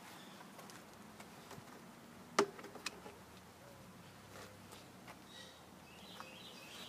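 Light clicks and handling noises as the air filter cover on the mower's Briggs & Stratton engine is opened and the foam air filter taken out, the sharpest click about two and a half seconds in. Faint bird chirps behind.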